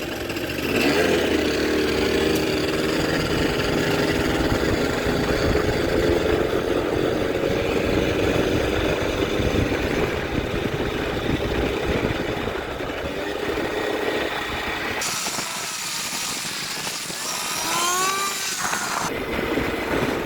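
Small two-stroke 50cc scooter engine pulling away and running under way, its pitch rising about a second in and then holding steady; it is running with the choke on. About 15 seconds in the engine sound drops away abruptly, leaving a hiss and a few short gliding squeaks.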